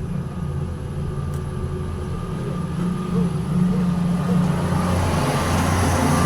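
Heavy machinery engine running with a steady low drone, getting louder from about halfway through.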